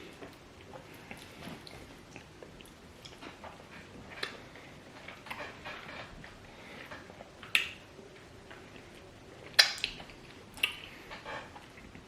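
People eating banku with okro soup: quiet wet chewing and mouth clicks, with a few sharper clicks in the second half.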